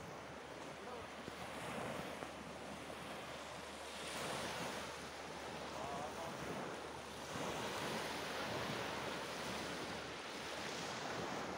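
Faint surf of small waves washing onto a sandy beach, swelling and easing every few seconds, with a brief click right at the start.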